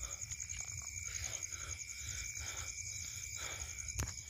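Night insects, crickets, trilling steadily in a high, fast-pulsing chorus. Soft rustles of movement on grassy ground and low handling noise run under them, and a single sharp click comes about four seconds in.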